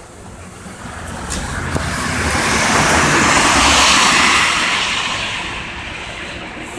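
A car passing close by on a wet road: the hiss of its tyres on the wet surface swells to a peak about halfway through and then fades away.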